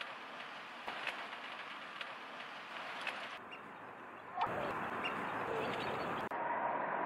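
Outdoor pond-side ambience: a steady hiss with faint, scattered bird chirps. The background shifts abruptly a few times and gets louder about four and a half seconds in.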